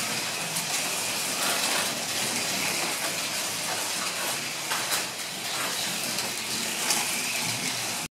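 Slot cars racing on a wooden track with copper rails: a steady whirring hiss of their small electric motors and pickups running on the rails, with a few sharp clicks.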